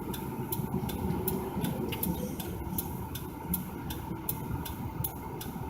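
A car's turn-signal indicator clicking steadily, about two and a half clicks a second, inside the cabin of a car waiting to turn left, over the low rumble of the idling engine and traffic.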